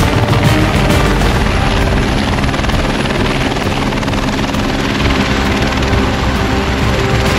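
Single-engine light helicopter running as it hovers low and settles onto the grass, turbine and rotor sound steady throughout.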